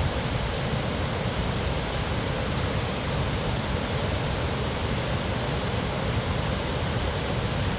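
Steady rush of water pouring down a cascading waterfall.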